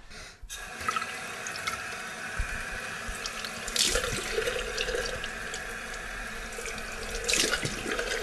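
Bathroom sink tap running steadily into the basin, with two louder bursts of splashing, about four seconds in and again near the end.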